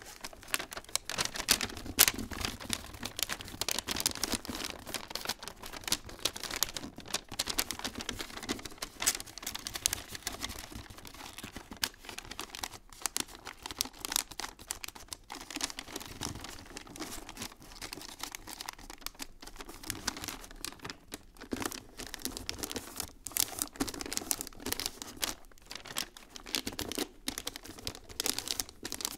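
Wrapping paper crinkling and rustling as hands fold it around a cardboard box and press down the creases, in a run of irregular crackles.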